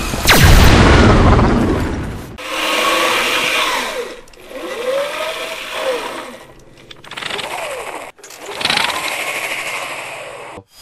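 A loud crashing rumble fades over the first two seconds. Then comes a run of short mechanical whirring sound effects for robot movements, made with props. Their pitch sweeps up and down, and each one is cut off abruptly.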